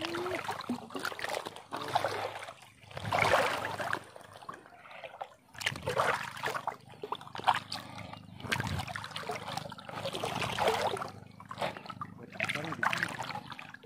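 Shallow seawater sloshing and splashing around the legs of someone wading across a reef flat, in irregular surges about every second or two.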